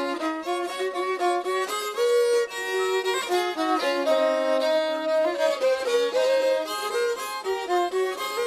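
A fiddle playing a melody in quick notes, often two notes sounding together.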